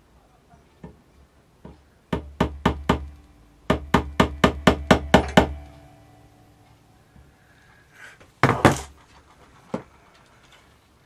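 Light hammer taps on a nail held against the edge of a guitar neck, punching centre marks for drilling side dot holes: four quick taps, a short pause, then about eight more in an even run. A louder clattering knock follows about eight seconds in.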